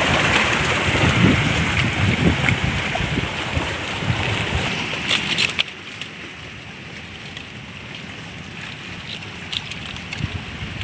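Waves washing on a rocky shore, with wind buffeting the microphone. About halfway through, the noise drops suddenly to a quieter background with a few light clicks.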